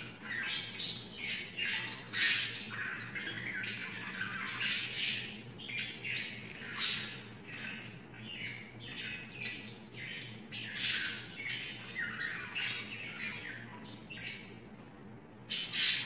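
Budgerigar giving a rapid string of short, scratchy squawks and chirps, several a second with brief pauses between runs.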